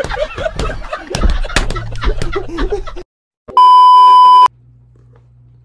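Men talking and laughing for about three seconds, then cut off. After a brief silence comes a loud, steady test-tone beep about a second long: the 1 kHz tone that goes with TV colour bars, slightly distorted.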